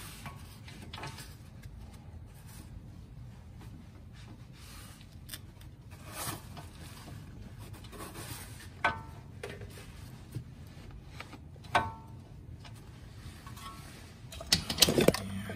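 A few sharp metallic clinks that ring briefly, about three spaced through the middle and a quick cluster near the end, over a low steady hum: hand tools knocking against the front wheel hub assembly while its rear mounting bolts are worked on.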